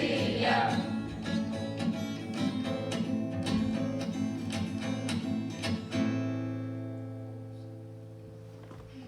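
Acoustic guitar strumming the closing bars of a song as the voices stop, then a final chord about six seconds in, left to ring and slowly fade.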